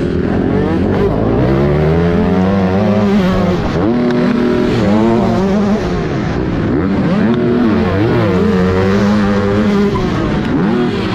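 Yamaha YZ125 single-cylinder two-stroke motocross engine at race pace, its pitch climbing hard and dropping sharply several times as it is revved through the gears and backed off for turns.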